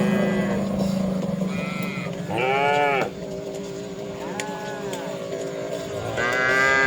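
Cattle mooing in short calls, four of them, each rising and falling in pitch; the second and the last are the loudest. A steady low hum runs underneath.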